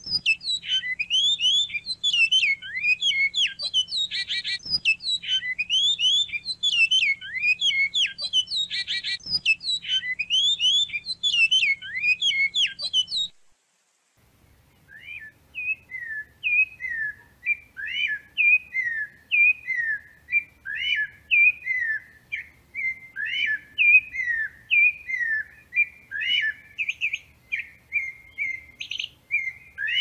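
Domestic canary singing a long, fast warbling song with rapid trills; it cuts off abruptly about 13 seconds in. After a short pause, a blue-gray tanager takes over with a steady series of squeaky chirping notes, about two a second.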